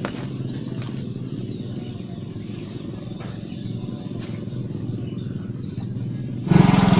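Outdoor ambience: a steady low hum with a few faint bird chirps and light clicks. About six and a half seconds in, it cuts abruptly to a much louder, fast-pulsing, engine-like drone.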